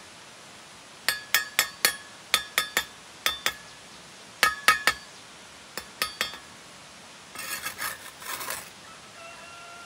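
Hard objects clinking with a short ring, about fifteen sharp clinks in small groups of two to four, then a brief scraping rustle.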